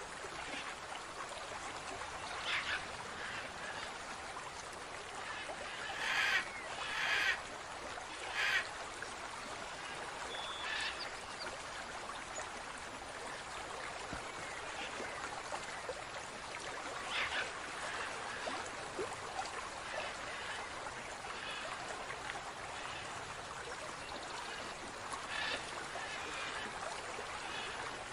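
Steady trickling of running water, with several brief louder bursts over it, the loudest three coming close together between about six and nine seconds in.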